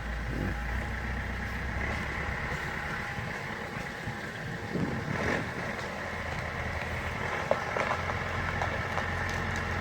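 Heavy equipment's engine running steadily while it works on a fallen tree, with a few brief knocks about halfway through and again a little later.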